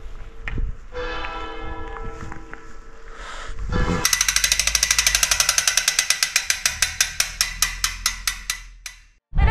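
Bicycle freewheel hub clicking fast as the wheel spins down, the clicks slowing and fading until they stop. Before it, a sustained ringing tone with many overtones breaks off and sounds again about a second in.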